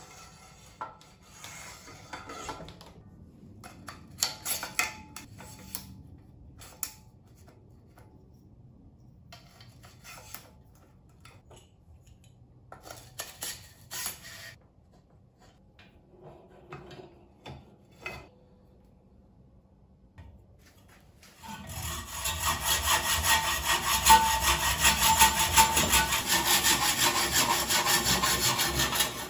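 Hacksaw cutting through a bicycle tube clamped in a saw guide, quick back-and-forth strokes starting about three-quarters of the way in. Before it come scattered light clicks and taps of bike parts being handled.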